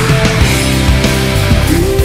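Loud heavy rock music with a steady drum beat and sustained guitar notes.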